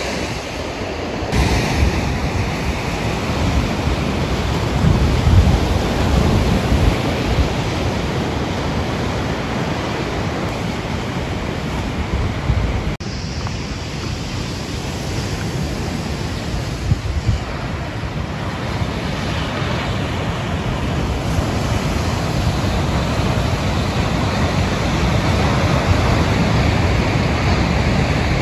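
Ocean surf washing and breaking on a sandy beach, with wind buffeting the microphone in a steady low rumble.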